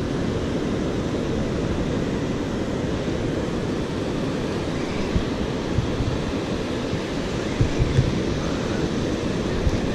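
Ocean surf washing onto a sandy beach in a steady rush, with wind buffeting the microphone and a few low thumps near the end.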